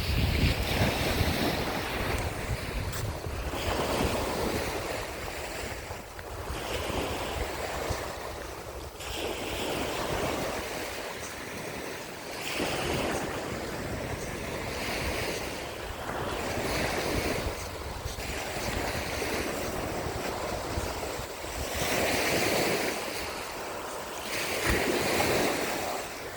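Sea surf breaking and washing up on the shore, swelling and fading every two to three seconds, with wind buffeting the microphone at the start.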